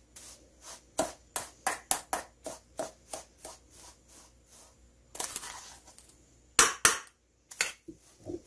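Metal spoon stirring butter-soaked breadcrumbs in a stainless steel bowl: rhythmic scraping strokes about three a second that fade out about halfway through. A short rustle and a few sharp clicks follow near the end.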